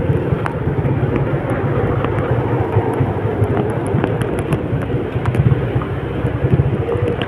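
A vehicle driving in heavy rain: a steady low engine hum under a constant rushing noise of rain and wet road, with scattered sharp ticks throughout.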